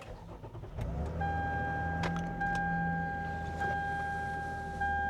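Lexus RX 350's 3.5-litre V6 starting about a second in and settling into a steady idle after an oil change. Over it a dashboard warning chime sounds: one steady tone that breaks briefly about every second, the car's hood-open warning.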